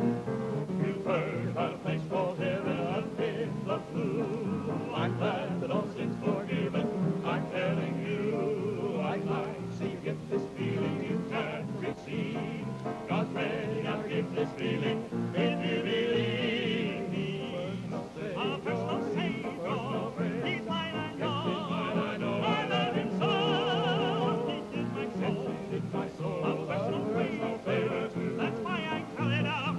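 Gospel singing, the voices held on long notes with a wide vibrato.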